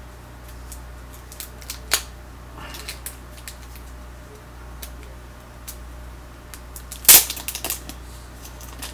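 Clicks and crackles of trading-card box packaging being handled and opened, with a sharp snap about two seconds in and a louder snap followed by a flurry of crackles about seven seconds in.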